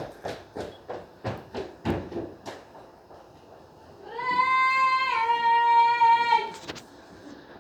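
A quick run of about eight knocks or bangs, roughly three a second. This is followed by a long, loud, high held tone that steps down in pitch once partway through, then a couple of sharp clicks.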